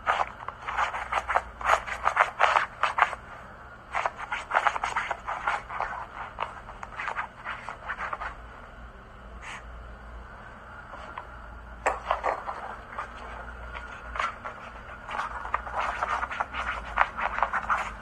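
Pomeranian puppy's claws scratching and scrabbling on a quilted fabric mattress pad as it paws at a small ball, in several rapid flurries with short pauses between them.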